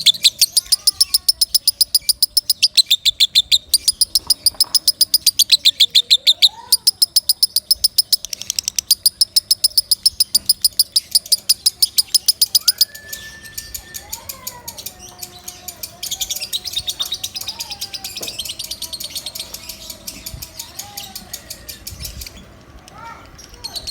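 Lovebird giving a long, loud run of fast, shrill chirps, then switching after about thirteen seconds to softer, more uneven chattering, with a short pause near the end before chirping again.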